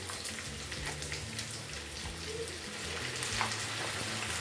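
Liver, kidney and onions frying in a hot pan, a steady sizzle with a scatter of small crackles.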